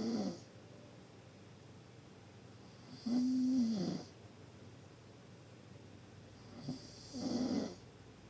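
Deep snoring, one snore about every three and a half seconds: the end of one snore at the start, a one-second snore with a steady pitched drone that drops at its end about three seconds in, and another just after seven seconds, led by a short catch.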